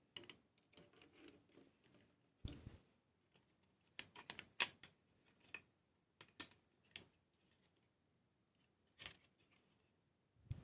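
Small diecast and plastic model-kit parts and tools clicking and tapping as they are handled and fitted together: scattered sharp clicks, a duller knock about two and a half seconds in, and a quick run of clicks around the middle.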